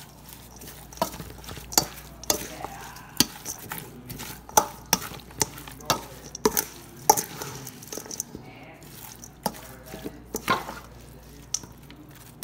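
A serving spoon tossing beef salad in a stainless steel mixing bowl: irregular clinks and scrapes of the spoon against the steel, mixed with the soft swish of the meat and herbs.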